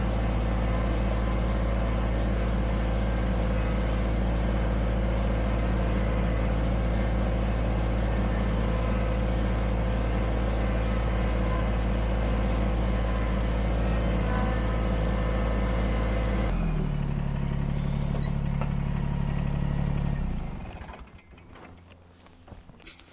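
Kubota BX25D sub-compact tractor's three-cylinder diesel engine running steadily under way. About three-quarters of the way through the note changes abruptly to a steadier one, and a few seconds before the end the engine sound drops away, leaving only faint clicks.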